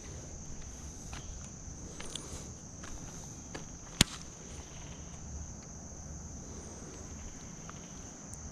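Steady high-pitched chorus of insects, crickets, with a few faint ticks and one sharp click about four seconds in.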